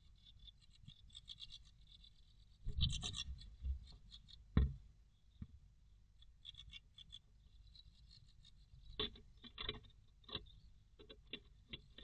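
A tit moving about inside a wooden nest box, scratching and rustling in the moss nest, with bursts of sharp taps and scrapes about three seconds in and again from about nine to ten and a half seconds, and a single thump near four and a half seconds.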